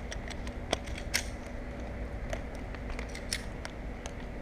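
Scattered small sharp clicks, a handful over a few seconds, of handguns being loaded and reholstered, over a steady low background hum.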